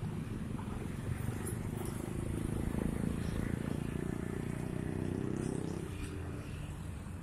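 Road traffic passing close by: cars and small motorcycles driving past. A motorcycle's engine note falls in pitch as it goes by in the middle.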